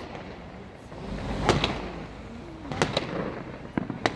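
Fireworks display exploding overhead: a series of separate sharp bangs, the loudest about one and a half seconds in, with a low rumble building just before it.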